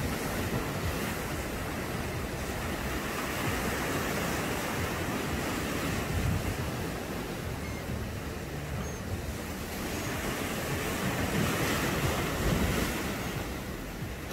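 Sea waves washing against rocky cliffs below, a steady surf noise that swells near the start and again near the end, with wind buffeting the microphone.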